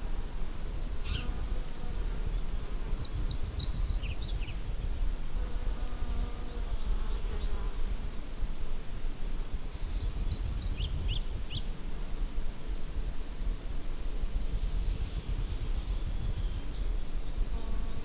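Outdoor summer ambience: wind rumbling on the microphone, with a songbird singing short trilled phrases three times and insects buzzing.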